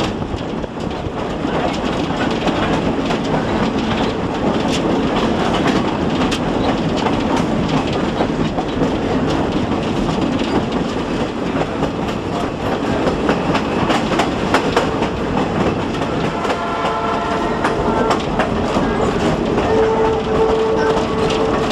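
Scenic-railway passenger train running along the track: a steady rumble with wheels clicking over the rail joints. In the last few seconds a steady pitched tone with overtones rises over the rumble.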